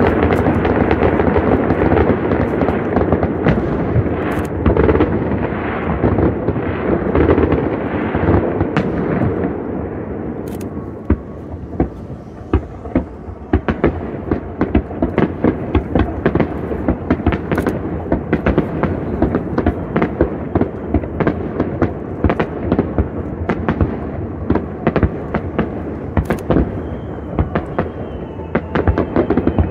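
Aerial fireworks shells bursting: a dense, continuous rumble of overlapping bangs for about the first ten seconds, easing briefly, then a steady run of separate sharp bangs and crackles.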